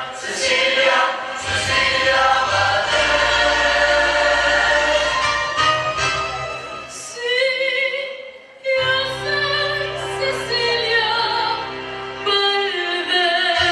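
Youth choir singing with instrumental accompaniment and a bass line. The sound drops briefly a little past the middle, then the singing comes back over steady low bass notes.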